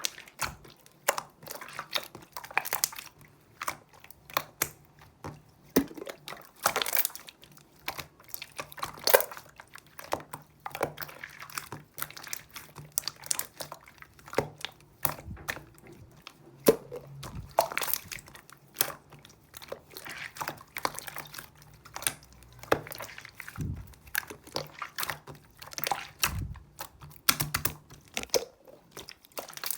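Slime being squished and pressed by hand, giving irregular sharp pops and clicks, several a second, with no let-up.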